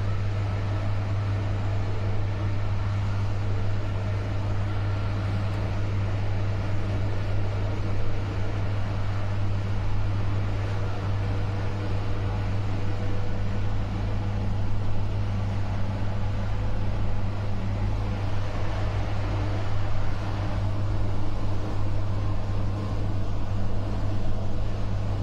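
V63 'Gigant' electric locomotive under way with its train: a steady deep electric hum over continuous running noise of wheels on track.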